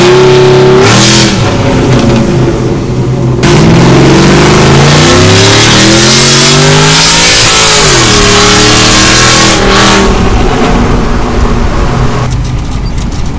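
Pickup truck engine under hard acceleration, heard from inside the cab: the revs climb, drop at a gear change about eight seconds in, climb again, then fall away as the throttle eases off about ten seconds in.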